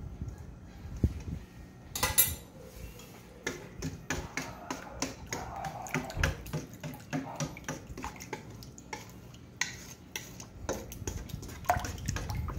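Wooden spoon stirring a wet dough mixture in a stainless steel bowl, with a run of irregular knocks and scrapes against the bowl's metal side. A sharper metallic clink stands out about two seconds in.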